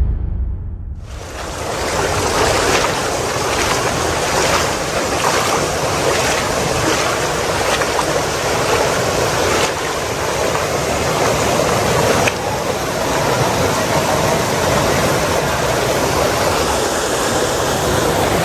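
Steady rush of a river's flowing water and waterfall, coming in about a second in and running on evenly.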